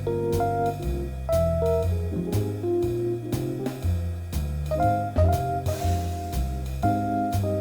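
Background music: guitar over drums with a steady beat.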